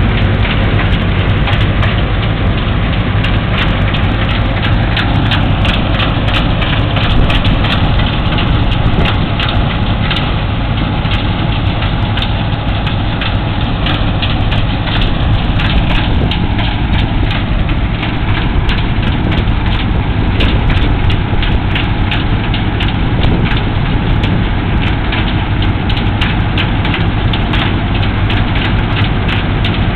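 A John Deere 6600 combine running steadily while harvesting rye: its diesel engine drones under load, with a constant clatter of rattles and ticks from the threshing machinery.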